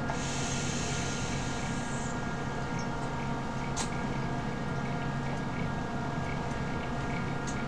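A hookah hose being drawn on: a soft airy hiss for about the first two seconds, over a steady low hum, with a couple of faint clicks.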